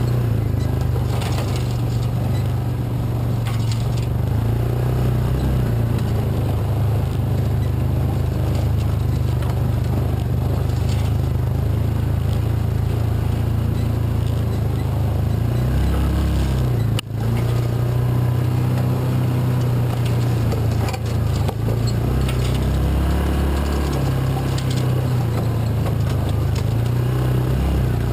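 Engine of a Yamaha Rhino side-by-side running steadily as it drives along a dirt trail, its low drone shifting pitch a few times, with a momentary drop about two-thirds of the way through.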